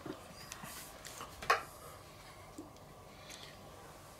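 A few light clicks and taps from utensils being handled on a wooden cutting board, the sharpest about one and a half seconds in, over quiet room tone.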